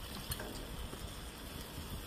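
Pork belly and kimchi sizzling on a grill pan: a steady hiss, with a light click near the start.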